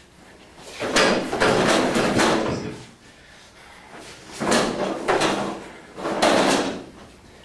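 Metal-framed classroom chairs and desks being shoved and tossed about, clattering in three noisy bouts: a long one about a second in, then two shorter ones in the second half.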